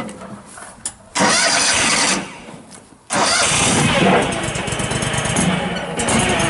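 Kohler V-twin gas engine of a compact backhoe loader being started: a first burst of cranking about a second in dies away after about a second, then a second try about three seconds in catches and the engine runs steadily.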